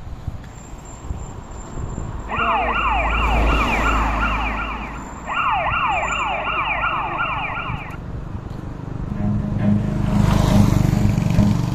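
Police-style yelp siren in two bursts of about two and a half seconds each, its pitch sweeping up quickly about three times a second. Near the end a motorcycle engine comes in low and gets louder as the bike approaches.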